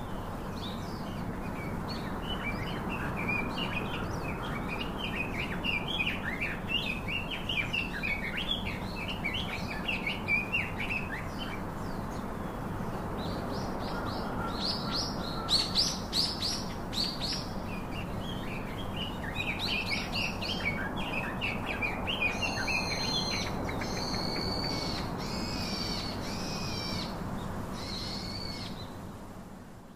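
Birds chirping in fast runs of short high notes, with longer ringing calls in the last several seconds, over steady outdoor background noise.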